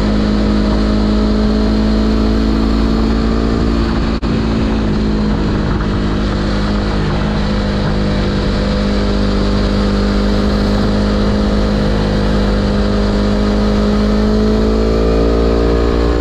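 Sport motorcycle engine pulling at steady road speed with heavy wind rumble on the microphone. The engine note dips for an instant about four seconds in, sags slightly in pitch through the middle, then climbs again near the end.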